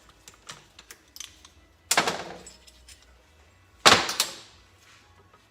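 Two loud clanks about two seconds apart, with lighter clicks and taps between: metal tools and engine parts being handled and set down during the engine teardown.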